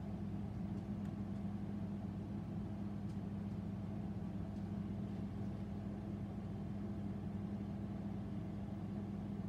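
A steady, unchanging low machine hum.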